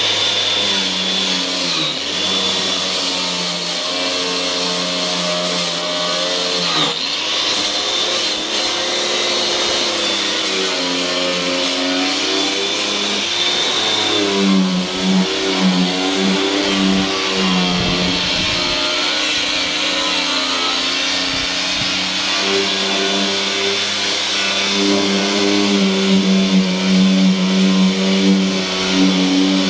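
Power tool running continuously while stripping paint from the door. Its motor pitch drops and recovers over and over as it is pressed into the work.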